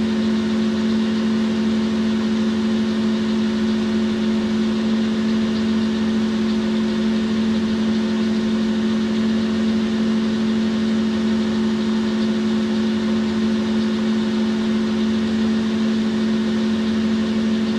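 Boxford centre lathe running steadily with a constant, even hum while a cloth polishes the workpiece spinning in its chuck.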